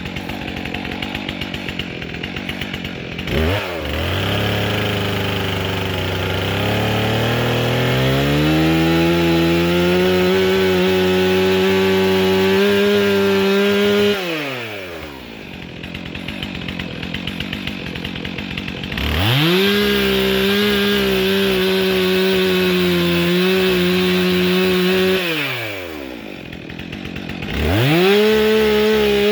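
Stihl MS 362 C two-stroke chainsaw with a 25-inch bar and skip chain, idling and then opened up to full throttle three times, dropping back to idle in between. Through the first and longest run, the pitch climbs slowly, as when the chain is cutting into wood.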